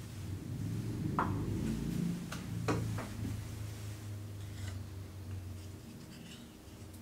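A wooden ladle stirring dashi in an earthenware donabe: liquid swishing with a few light clicks of the ladle against the clay pot, over a low steady hum.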